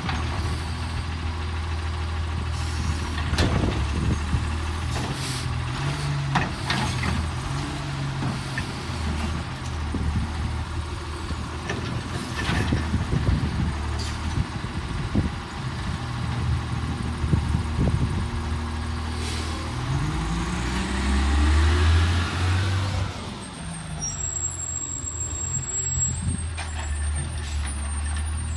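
Garbage truck's diesel engine running while its automated side-loader arm grabs, lifts and dumps a green-waste cart, with knocks of the cart and bin and hisses of air. About 20 seconds in, the engine revs up as the truck pulls away.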